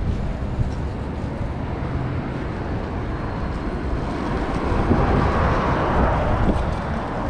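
City street traffic noise: a vehicle passes close by, swelling about four to six seconds in, over a steady low rumble.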